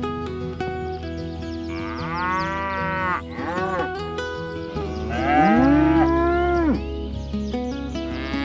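Cattle mooing: one long moo about two seconds in and a louder, deeper one about five seconds in, over background music.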